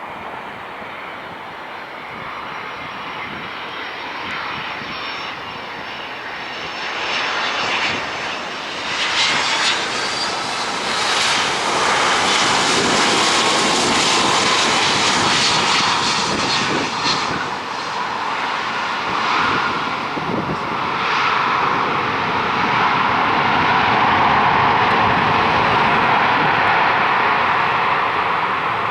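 Jet engines of a UPS Boeing 767-300F freighter going past, a rushing engine noise with a high whine that swells from about seven seconds in and stays loud.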